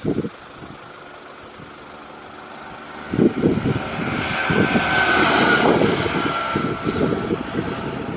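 Riding noise on a BMW R1100RT motorcycle. About three seconds in, wind rush and low buffeting on the microphone grow louder, swell to a peak mid-way and ease slightly. A faint whine that dips a little in pitch runs through the louder part.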